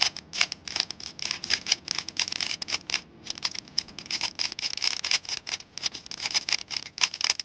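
A Rubik's cube's layers turned quickly by hand: a rapid run of clicks and scrapes, several a second, with a short pause about three seconds in. These are the final last-layer turns of the solve.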